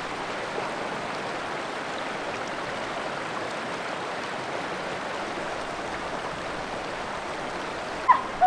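Shallow river rapids rushing steadily over rocks. Near the end a person's sudden loud cry cuts in.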